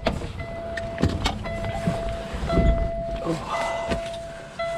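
Semi truck cab's warning chime sounding a steady single tone that repeats about once a second with short gaps, over the low running of the idling engine. Scattered knocks and rustling from climbing into the cab through the open driver's door.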